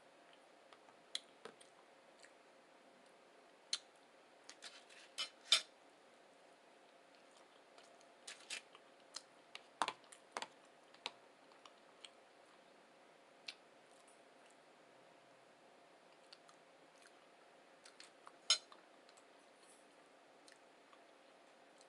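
Person eating: scattered sharp clicks and taps at irregular intervals, with a faint steady hum underneath.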